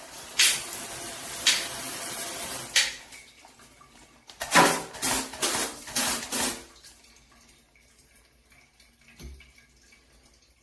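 Water spraying from a handheld shower head: a hissing spray for a couple of seconds, then about four short bursts before it stops.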